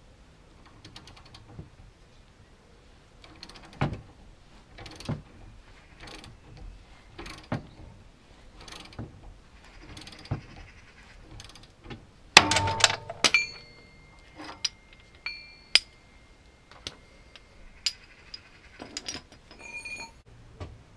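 A hand ratchet clicks and metal tools knock as the nut of a ball joint splitter is wound in to press out a car's front upper ball joint. About twelve seconds in comes a cluster of loud metallic clanks with brief ringing.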